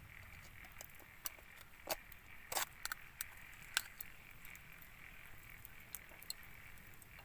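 Scattered pops and crackles from oysters grilling over an open fire, with a few sharper pops in the first four seconds.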